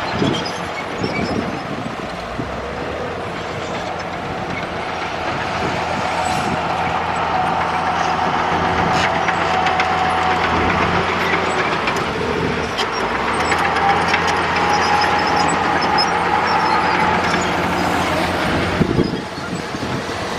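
Komatsu D65E bulldozer's diesel engine running steadily under load, with a few sharp clicks and cracks over the engine noise. The engine sound drops near the end.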